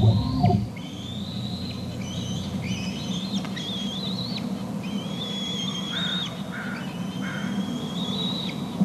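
A young bald eagle calling again and again with high, drawn-out whining calls, each about a second long, some rising or wavering in pitch: food-begging as it goes down to the nest to be fed. A short low rumble sounds at the very start.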